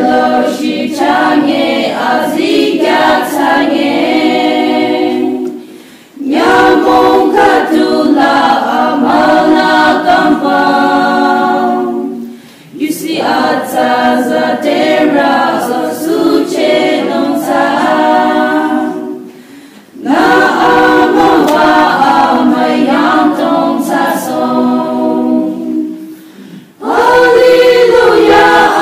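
Women's choir singing a hymn unaccompanied, in phrases of about six seconds with brief pauses for breath between them.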